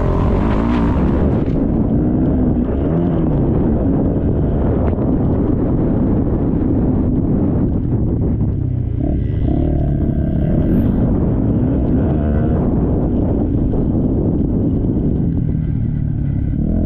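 Motocross bike engine revving up and down repeatedly over a steady low rumble.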